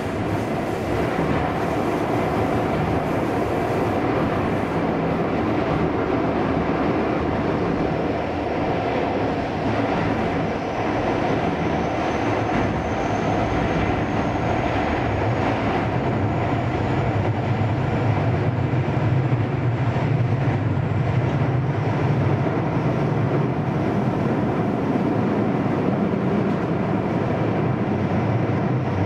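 Interior running sound of a Keio 5000 series commuter train: steady rolling noise of the wheels on the rails between stations. A faint high whine rises slowly in pitch through the middle, and a deeper hum grows stronger from about halfway.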